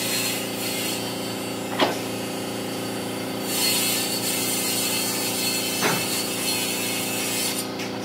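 A woodworking power tool or shop machine running steadily, a constant hum with a noisy edge, with two short sharp knocks about two and six seconds in.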